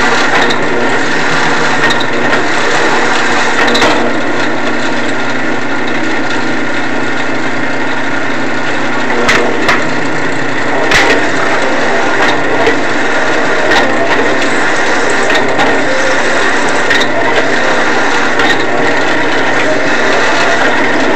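Rockwell drill press running at its slowest speed while a half-inch drill bit cuts through scrap aluminium: a steady mechanical whir with a chattering cutting noise and a few sharp clicks about halfway through.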